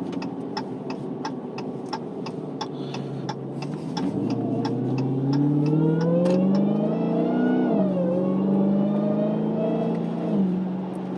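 Dodge Challenger SRT Hellcat Redeye's supercharged 6.2-litre Hemi V8 accelerating, its note climbing for a few seconds, then dropping sharply at about eight seconds as it shifts up. It then holds steady and drops again near the end. In the first four seconds a turn signal ticks, about three clicks a second.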